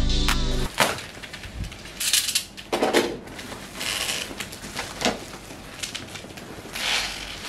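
Background music cuts off within the first second. Then a plastic mailer bag and foil bubble wrap rustle and crinkle in irregular bursts as a box is pulled out of them.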